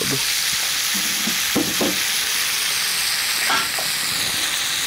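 Beef mishikaki skewers frying in butter in a hot pan, giving a steady sizzle.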